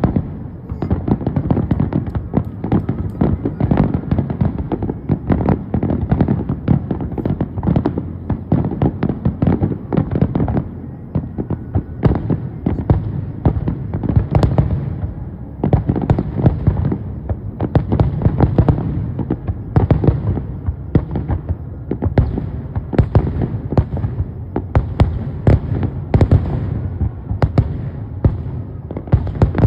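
Aerial fireworks shells bursting in a dense, continuous barrage, many bangs a second without let-up.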